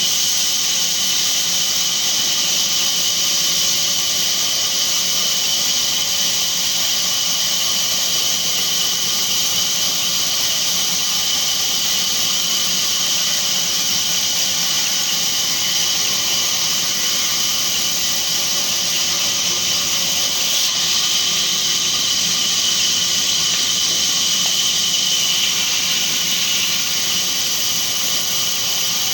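Sawmill saw running through neem timber: a steady high whine over a hiss, unbroken throughout.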